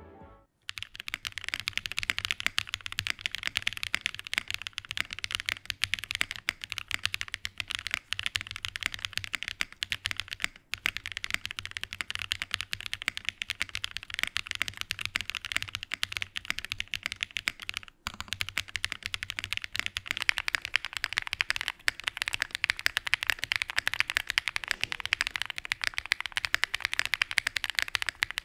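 Fast, continuous typing on an AS65 prototype gasket-mount mechanical keyboard with an FR4 plate, lubed Aniya R2 switches and GMK Wasabi keycaps: a dense stream of key clacks, heard with only the middle foam fitted and later with all foam fitted. The typing breaks off briefly twice, about eleven and eighteen seconds in.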